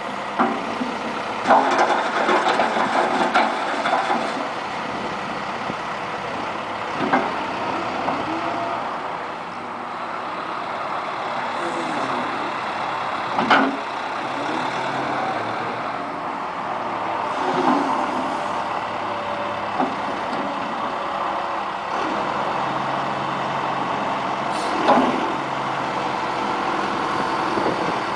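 John Deere 160 excavator's diesel engine running steadily, with a few sharp metallic clanks and knocks scattered through, several close together near the start.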